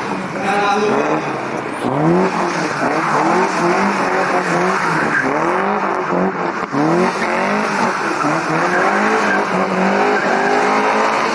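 BMW 02-series four-cylinder engine revving up and down over and over as the rear-wheel-drive car drifts in tight circles, each rev a quick rise in pitch, with the tyres skidding and squealing on the asphalt.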